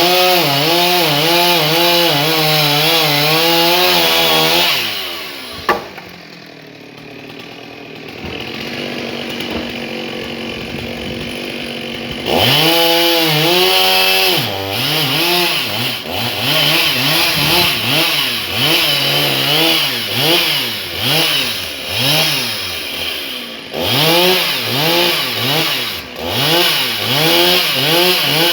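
Stihl MS 250 two-stroke chainsaw running at high revs, dropping to idle for about seven seconds with a sharp click as it drops, then revving high again and being throttled up and down repeatedly, about one swell a second.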